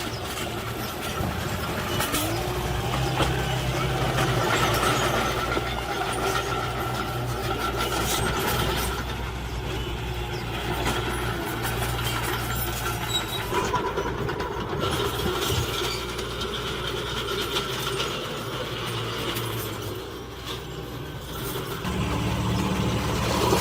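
Diesel engine of heavy earthmoving machinery running steadily, with a few knocks over it.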